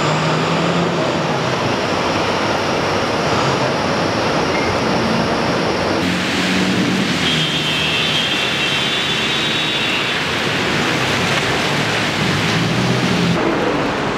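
Heavy rain pouring steadily, with a low hum of street traffic underneath and a faint high-pitched squeal partway through.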